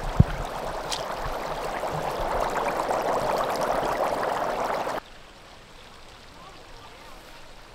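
Floodwater welling up from under a flooded gravel lot around a fence post, bubbling and gurgling steadily and growing louder; the speaker takes it for a burst pipe underground. A single thump just after the start; about five seconds in the sound cuts off abruptly, leaving only faint outdoor noise.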